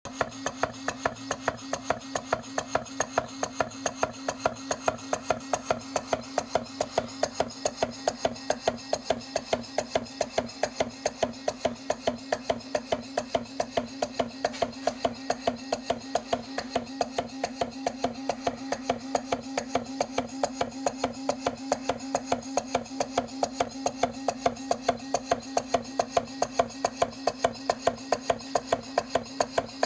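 Stuart beam model engine running steadily, with a regular sharp knock a few times a second at the top and bottom of the piston's travel. The owner says the knock is not the piston, and its cause is unknown. A steady hum runs underneath.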